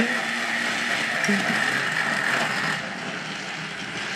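Battery-powered TrackMaster toy trains running on plastic track: the steady whir of the small motor and gears with the clatter of wheels on the track, dropping somewhat about three seconds in.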